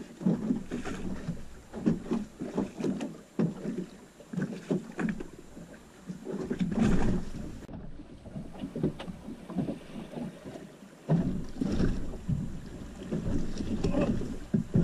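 Water slapping and knocking against a small boat's hull as it rocks at sea, in uneven bursts. Wind rumbles on the microphone at times, more heavily in the last few seconds.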